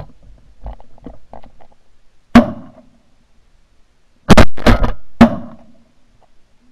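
Duck hunters' shotguns firing: one shot about two seconds in, then three shots close together between about four and five seconds in.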